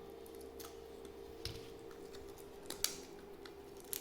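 Faint handling of packaging and small accessories: scattered sharp little clicks, a few clustered near the end, over a steady low hum.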